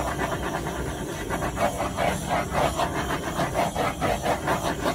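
Plastic squeeze bottle of acrylic pouring paint being squeezed, sputtering paint and air in quick rhythmic spurts, several a second.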